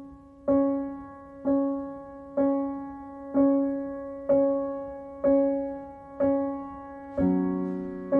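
Piano music: a single note struck about once a second, each one ringing and fading, with lower notes joining in as a chord about seven seconds in.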